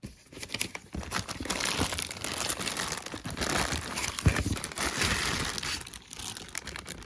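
Packaging crinkling and rustling as it is handled, with small clicks and one sharper knock a little past the middle, while the contents are lifted out of the box; it dies down near the end.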